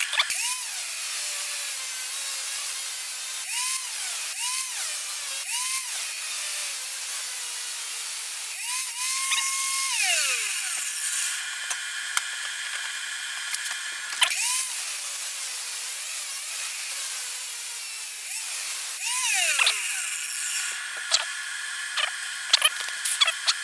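Bandsaw running and cutting metal stock, a steady machine hum with squeals that rise and fall in pitch several times as the blade works through the cut; a few sharp clicks near the end.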